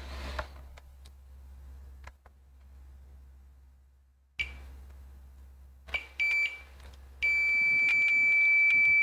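Fluke 115 multimeter's continuity beeper: a few short chirps as the probes settle on the board, then one long steady high beep as they hold contact. It shows a low-resistance path, meaning the two probed points on the laptop motherboard are connected. Light clicks of the probe tips touching the board come earlier.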